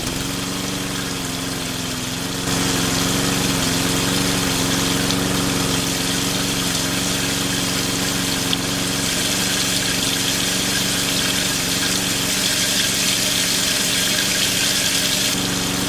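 Small electric motor running steadily with a constant hum over a whirring hiss, getting louder about two and a half seconds in.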